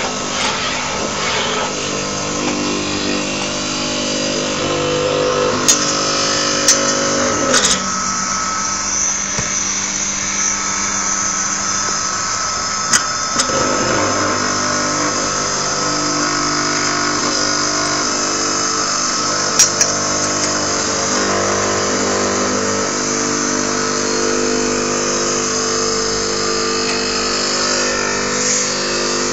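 Electric paste-grinding mill running steadily with a motor hum and whine. The tone dips and shifts about a third of the way through while the grinding head on top is handled, and a few sharp metallic clicks are heard.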